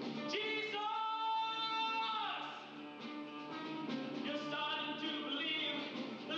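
Live rock-opera singing with band accompaniment. A voice holds a high note for over a second near the start, then falls away, and the singing goes on.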